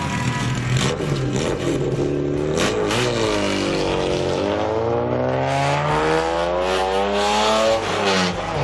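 Race car engine at high revs, its pitch dipping briefly about three seconds in, then climbing steadily for several seconds before falling off sharply near the end.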